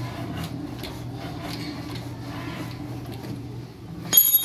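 A Bharat 10 hp single-cylinder diesel engine being hand-cranked by its starting handle: a steady low hum with regular beats that stops about three and a half seconds in. A loud, ringing metallic clink of the handle follows near the end.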